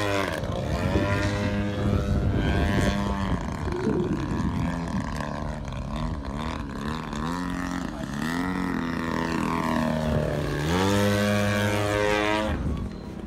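Engine and propeller of a 103-inch Laser radio-controlled aerobatic plane, powered by a GP-123 engine, in flight. The engine note swings up and down in pitch as it manoeuvres, climbs to a loud steady high note about eleven seconds in, then sweeps down and drops away near the end as the plane passes.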